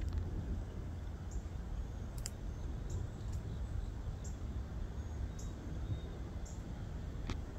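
Outdoor ambience: a steady low rumble of wind on the microphone, with short high-pitched chirps from small birds every half second to a second.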